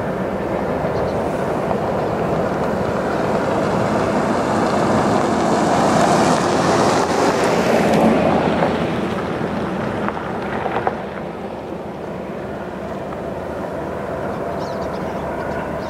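A long coal train passing at a distance: diesel locomotive engines running and steel wheels rolling on the rails. It grows louder toward the middle and then eases off, with one sharp clank about eleven seconds in.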